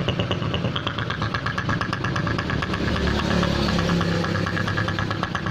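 Honda Supra X 125's single-cylinder four-stroke engine idling with a steady, fast pulsing and a rough, snoring ('ngorok') note instead of a smooth idle. The fault is traced to a cracked engine breather hose leaking at its clamp.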